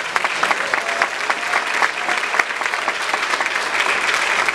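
Church congregation applauding, many hands clapping at a steady level.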